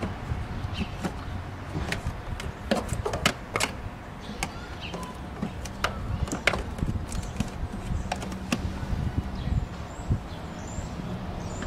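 Irregular sharp plastic clicks and knocks as a black plastic engine-bay cover is handled and pressed onto its clips, over a steady low hum.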